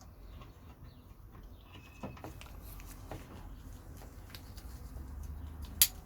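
Folding knives being handled and set down: faint rustles and small clicks and knocks, with one sharp click near the end.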